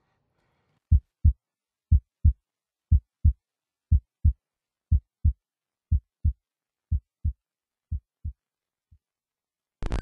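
Heartbeat sound effect: a slow double thump, lub-dub, about once a second, eight beats that grow fainter and end with one last faint thump. Just before the end, a loud hiss of TV static cuts in.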